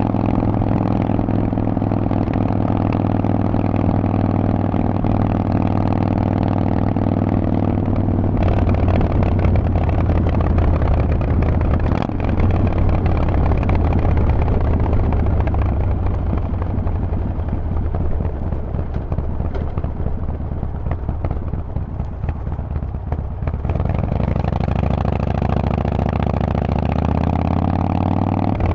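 Harley-Davidson Forty-Eight's air-cooled V-twin running through a Vance & Hines exhaust while riding. It holds steady revs at first, goes rougher and noisier through the middle, and the revs climb near the end as the bike accelerates.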